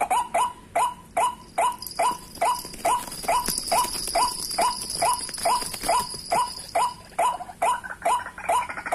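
White-breasted waterhen calling, a rapid run of short, falling 'kru-ak' notes repeated about three times a second without a break.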